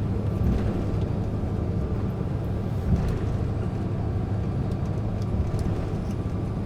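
Steady low rumble of an airliner cabin while the plane taxis after landing: the jet engines at idle and the wheels rolling, with a few faint clicks.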